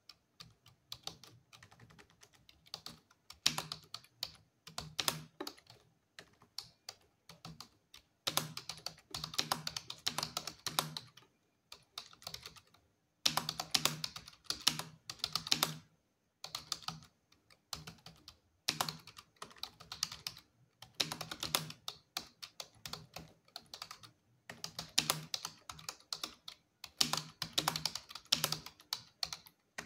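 Computer keyboard being typed on fast during a timed typing test: rapid key clicks in runs of a few seconds, broken by short pauses of about half a second to a second.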